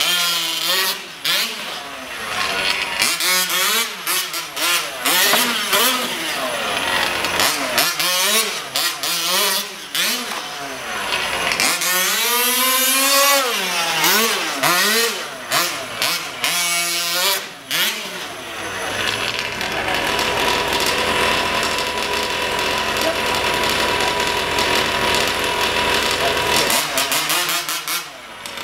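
Two-stroke gasoline engine of a Losi 5IVE-T RC truck revving up and down again and again as the truck is driven hard. In the latter part it holds a steady pitch for several seconds, then revs up and down again near the end.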